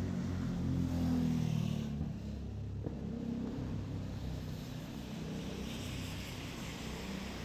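A motor vehicle passing on a wet road in the rain. Its engine and tyre rumble swells about a second in and then fades, with a tyre hiss coming and going over the steady hiss of the rain.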